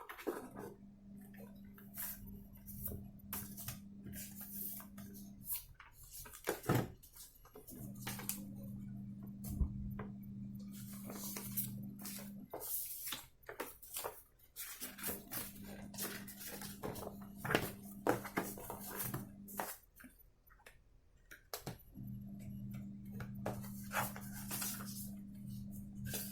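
Unboxing handling noises: scattered clicks, taps and rustles of packaging and items being picked up and set down. A steady low hum sounds in four stretches of about five seconds each, with short gaps between them.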